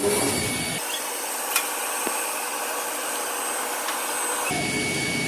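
Hot air laminating machine for EPE foam running: a steady rushing hiss from its hot air blower, with a thin high whine over it and a single tick about a second and a half in.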